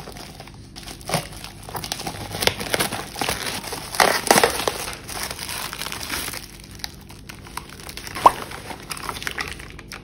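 Plastic packaging and bubble wrap crinkling and rustling as a parcel is cut open and unwrapped by hand. The crinkling is loudest about four seconds in, and there is one short sharp click near the end.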